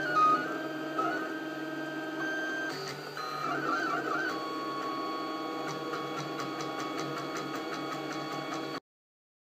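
Ultimaker 3D printer printing, its stepper motors whining in shifting, wavering tones as the print head traces the outline, over a steady hum. The sound cuts off suddenly just before the end.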